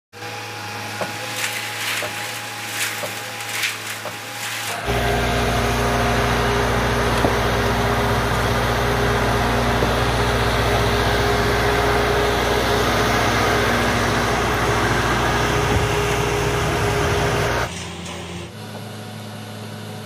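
Concrete mixer with attached concrete pump running steadily, with a few clicks in the first few seconds. The machine noise jumps louder about five seconds in and drops near the end.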